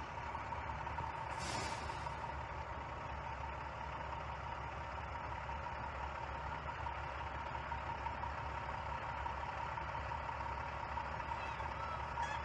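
Engine of a large vehicle running steadily, a low rumble under a steady whine, with a brief hiss about a second and a half in.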